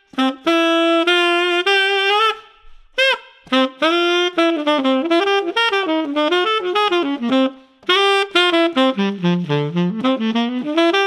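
Tenor saxophone played through a Theo Wanne Lakshmi gold-plated metal mouthpiece: jazz phrases with quick runs of notes, in a bright, powerful tone with a lot of projection. It breaks off briefly between phrases about three and eight seconds in.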